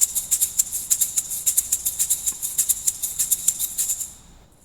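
Hand-held percussion rattle (shaker) being shaken in a fast, even rhythm of crisp, hissy strokes, several a second, echoing in a large reverberant church; the shaking stops about four seconds in.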